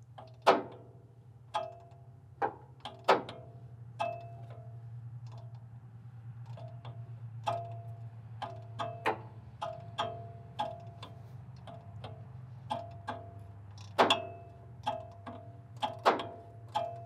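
A hand ratchet on the crankshaft pulley bolt clicking as the EN07 engine is turned over slowly by hand, with the valve train moving. The clicks come irregularly, some in quick runs, each with a short metallic ring, over a low steady hum.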